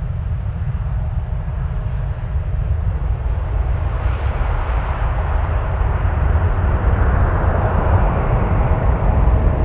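Boeing 737-800's CFM56-7B turbofan engines at takeoff thrust as the jet climbs away: a steady deep rumble, with a roar and a thin steady whine that build and grow louder through the climb.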